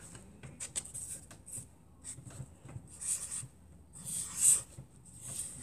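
Hands handling and rubbing something close to the microphone: a run of soft scrapes, rustles and small clicks, with a louder scratchy rustle about four and a half seconds in.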